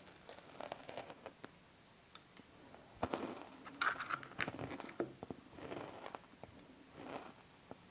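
Close-up crunchy biting and chewing of a chocolate-coated crispy bar: irregular crackling crunches, heaviest about three to four seconds in.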